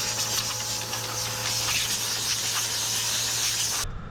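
Compressed air hissing steadily from an air nozzle, blowing dust and chaff out of a loader tractor's radiator and air filter to keep the engine from overheating; it cuts off abruptly near the end.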